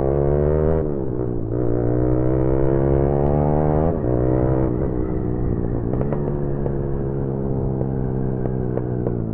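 Motorcycle engine heard from on the bike, accelerating: its pitch climbs, then drops sharply at a gear change about a second in and again about four seconds in, after which it runs steadier.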